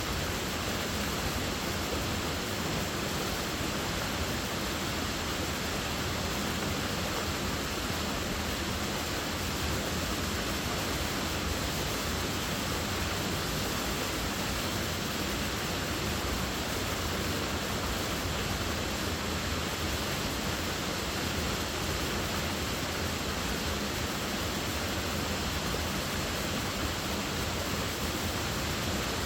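Waterfall: water falling and splashing in a steady, even rush with no breaks or changes.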